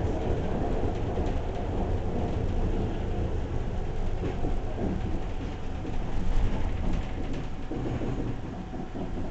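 Electric rack-railway car heard from inside the passenger compartment while running, a steady low rumble with rattles and clicks. It grows quieter near the end as the train slows at a station.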